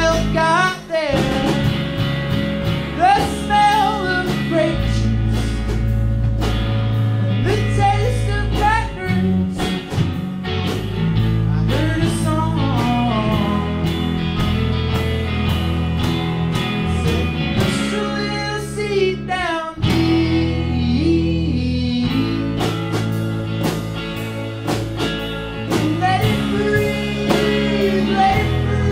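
Live rock band playing: electric guitars over a steady beat, with sung vocals coming and going over the top.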